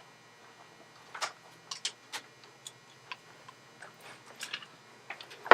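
Small clamps being fitted onto a phone's edges to hold a freshly glued screen: a scattered series of short, light clicks and taps at irregular spacing.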